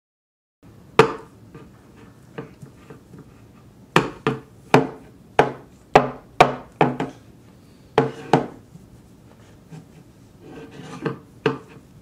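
Irregular sharp knocks and clatters, a dozen or so, bunched in a flurry around the middle with a pair near the end: cans of green beans being banged about in an attempt to get them open.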